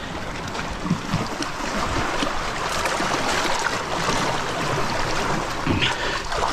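Sea water sloshing and splashing over rocks as a freshly scaled snapper is swished through it by hand to rinse it.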